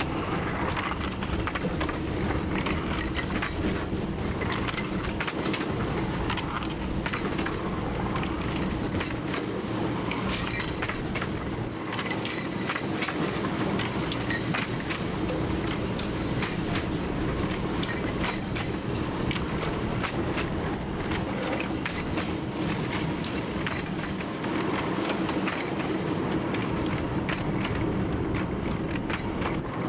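TU7 narrow-gauge diesel locomotive running steadily, heard from its cab: a constant engine drone with frequent clicks and knocks from the wheels over the track.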